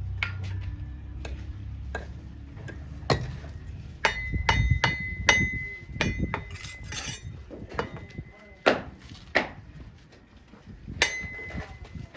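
A metal tool knocking on brick during bricklaying: irregular sharp knocks, several leaving a clear metallic ring. A low rumble runs through the first two seconds.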